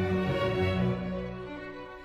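Slow, melancholic classical music with sustained bowed-string tones; the low bass notes fade out near the end.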